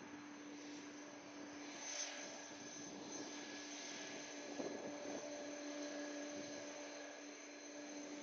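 Airbus A330-900neo's Rolls-Royce Trent 7000 jet engines running at low thrust on the runway: a steady whine over a low hum and a rushing haze, slowly getting louder.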